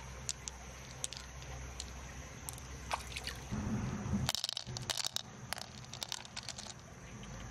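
Fingers squishing through a freshwater mussel's wet flesh and picking out pearls, with scattered small clicks. From about four seconds in comes a quick run of clicks as the pearls are set down on the mussel's nacre shell and knock against each other.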